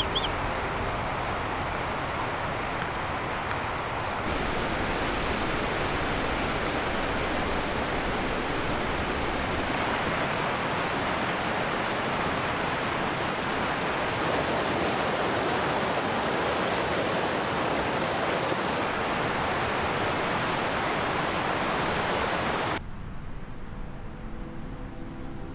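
Fast mountain stream rushing steadily over rocks, a constant roar of white water. Near the end it drops away sharply to a much quieter background.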